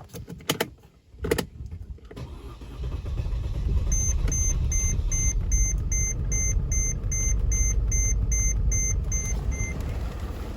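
Mercedes ML320's OM642 V6 diesel starting up and running steadily after a few sharp clicks. A warning chime beeps regularly over it, about two and a half times a second, from around four seconds in until near the end.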